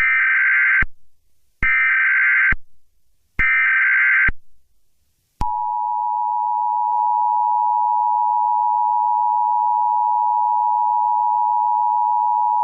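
Emergency Alert System SAME header: three short bursts of warbling data tones, each just under a second long. About five seconds in, the steady two-tone EAS attention signal starts, the 853 and 960 Hz pair, announcing a new alert.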